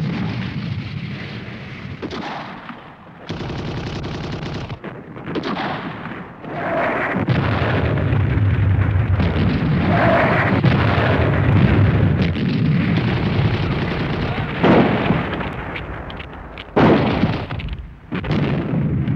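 Battle sound effects of gunfire and explosions, with two sudden loud blasts about fifteen and seventeen seconds in.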